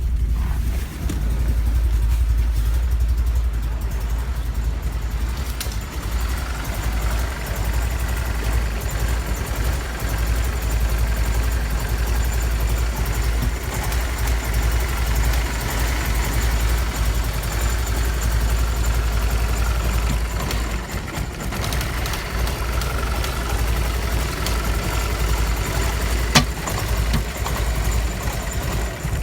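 BMW E46 318i's M43 1.9-litre four-cylinder engine idling very roughly and unevenly, the sign of an undiagnosed fault that cuts power and makes it die on throttle. One sharp click sounds near the end.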